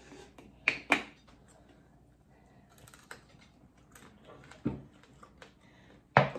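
Scattered clicks and knocks as plastic condiment bottles are handled at the table: a sharp pair about a second in, a knock near the end of the middle, and a loud sharp sound near the end as a ketchup squeeze bottle is squeezed upside down.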